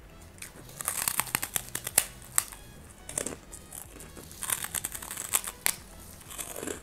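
Crunching of a crisp kerupuk cracker being broken and chewed, in two bursts of sharp crackling: one about a second in, and another around four and a half seconds in.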